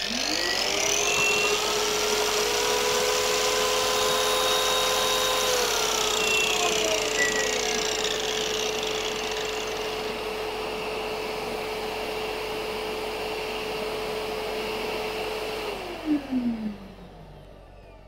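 Electric wall chaser and construction vacuum started together through the vacuum's power-tool socket. The motors spin up to a steady whine over rushing suction air, run for about fifteen seconds, then wind down with a falling whine after a few clicks.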